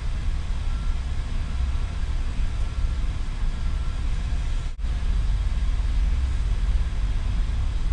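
Steady low background rumble with a faint hiss, the recording's own noise floor with no other event. It drops out for an instant nearly five seconds in.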